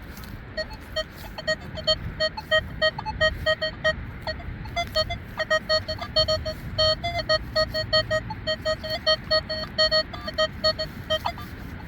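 Nokta Legend metal detector sounding rapid short electronic beeps, target responses as the search coil sweeps the ground. Most beeps are at one low pitch, with a few higher tones here and there.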